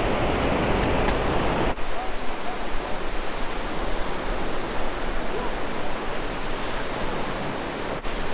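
Gulf surf washing up on the beach, a steady rushing noise. It changes abruptly a couple of seconds in.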